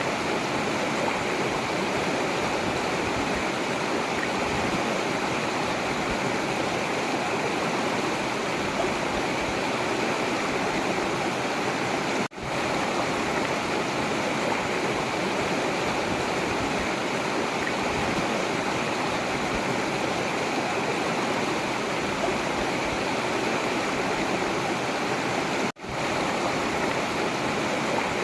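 River water rushing steadily over its bed, an even continuous flow. The sound cuts out for an instant twice, about 12 seconds in and again near 26 seconds.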